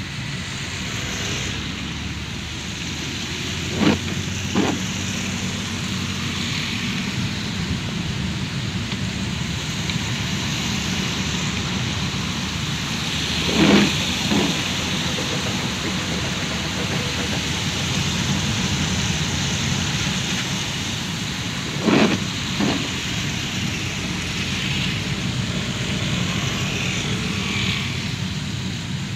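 Steady rain and road noise inside a car driving in the rain. Over it come short thumps in pairs, about two-thirds of a second apart, three times at intervals of roughly eight to nine seconds.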